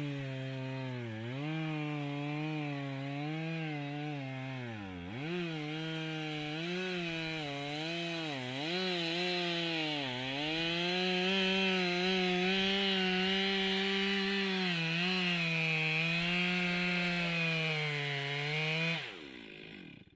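Chainsaw running at high revs while cutting wood, its pitch dipping several times as the chain bogs under load, then dropping away near the end.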